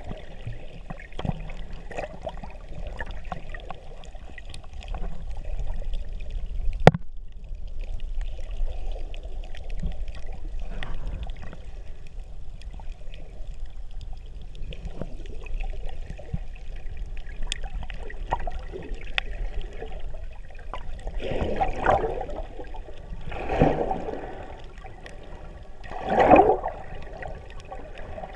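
Underwater sound from a snorkeler's camera beneath the surface: a muffled, steady water rumble with many faint scattered clicks, and a single sharp knock about seven seconds in. In the last third, three louder rushing surges of water noise come a couple of seconds apart.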